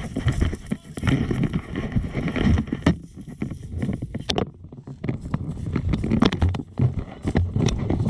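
Dirt bike engine running under load on a single-track trail, the note rising and falling with the throttle, with wind noise on the microphone. The audio is played back at double speed. The sound goes briefly muffled about four and a half seconds in.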